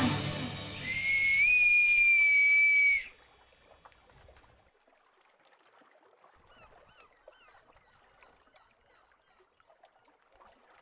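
A bosun's whistle sounds one high held note for about two seconds, stepping up a little in pitch partway, then cutting off sharply, as the countdown hits zero. A music tail fades out just before it, and near silence follows.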